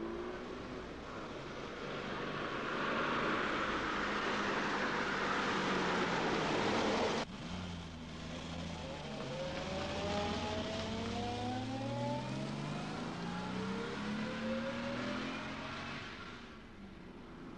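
Car driving, first as a rushing noise that swells, then after an abrupt cut about seven seconds in as an engine accelerating, its pitch rising steadily before it fades near the end.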